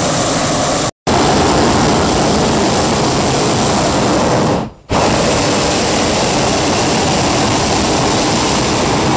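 Hot air balloon's propane burner firing: a loud, steady roar that drops out briefly twice.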